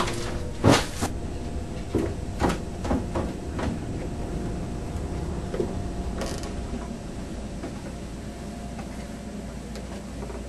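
A sharp knock, then several lighter knocks and creaks of something being handled, over a steady low hum.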